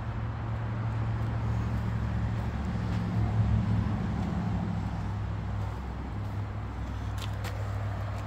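Road traffic: a steady low rumble of motor vehicles, with one vehicle passing that is loudest about three and a half seconds in, then easing off.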